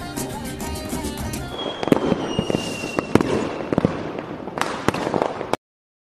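Music for the first second and a half, then fireworks: several sharp bangs with crackling and a slowly falling whistle. The sound cuts off suddenly about half a second before the end.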